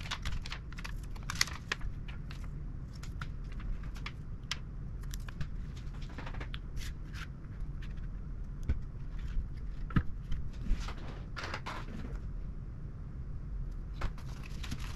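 Small parts and tools being handled while a graphics card is worked on: scattered light clicks and short scratchy rustles over a steady low hum, with a cluster of louder clicks about two-thirds of the way through.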